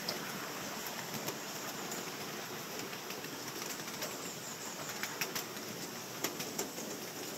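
Steady rush of flowing river water, with a few sharp clicks in the second half.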